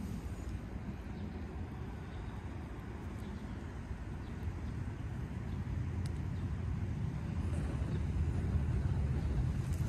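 Steady low outdoor rumble that grows louder in the second half.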